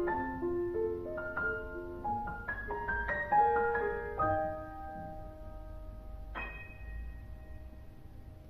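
Grand piano played solo: a quick passage of notes in the middle and upper range, settling on a held chord about four seconds in, then a single high note struck about six seconds in and left to ring and fade as the piece closes.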